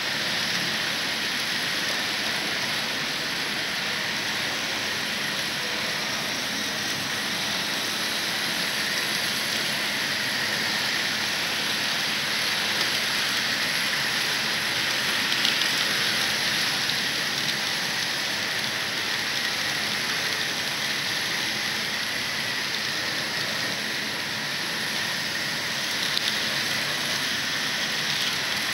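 Steady whirring hiss of HO-scale model trains and Tyco US-1 slot trucks running, small motors and wheels on plastic track, with a faint steady whine.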